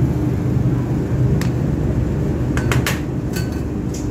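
Steady low hum of a busy street-food kitchen, with a few sharp metal clinks of utensils on the steel counter and tray, several close together about two and a half to three seconds in.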